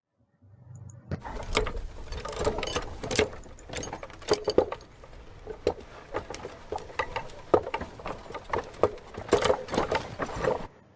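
Water boiling in a pot, bubbling with a dense, irregular run of pops.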